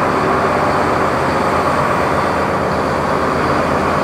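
Farm tractor engine running steadily.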